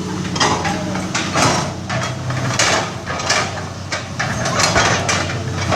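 Excavator's diesel engine running steadily under a series of irregular knocks and clanks, about one or two a second.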